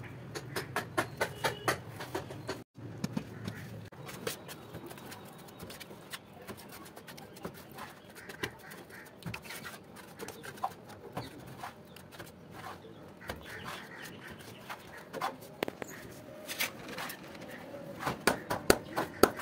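Hands tapping a 450 x 300 mm glazed ceramic wall tile to bed it into cement mortar, in quick runs of light knocks near the start and again near the end. In between, a steel trowel scrapes and spreads mortar on the back of a tile.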